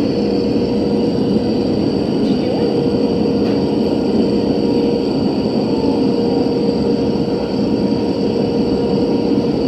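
Airliner cabin noise: the steady rush of engines and air through the cabin, with a steady hum running under it.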